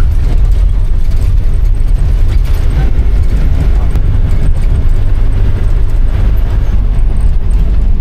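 Cabin noise inside a shuttle minibus driving on a rough dirt road: a loud, steady low rumble of engine and road.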